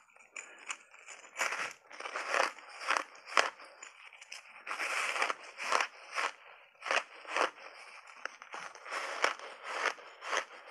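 Chunks of frozen purple ice dusted with matcha tea powder and milk powder being bitten and chewed close to clip-on microphones: an uneven run of crisp, brittle crunches, about two a second, with short pauses between bites.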